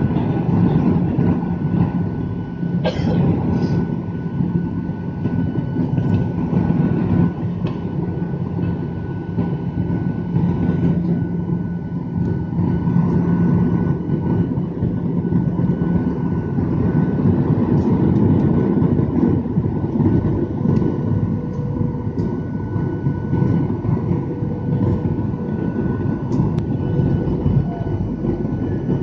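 Steady cabin noise of a jet airliner during descent: a low rumble of engines and rushing air, with a faint steady hum that fades about halfway through. There is a brief click about three seconds in.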